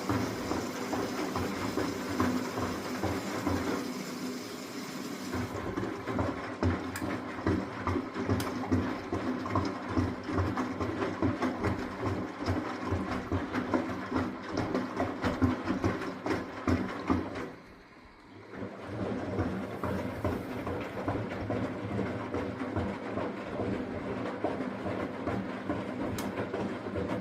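Miele De Luxe W423 washing machine running a cycle, a steady rhythmic mechanical clatter and rumble. It stops for about a second about two-thirds of the way through, then starts again.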